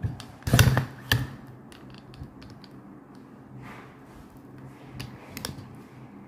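Plates being moved about on a table: a heavy knock about half a second in, a sharper tap just after, and a couple of lighter taps near the end.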